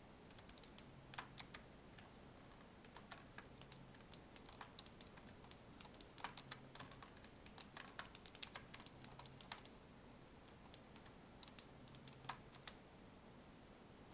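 Faint computer keyboard keys clicking in quick, irregular runs, busiest in the middle: shortcut keys being pressed while working in 3D modelling software.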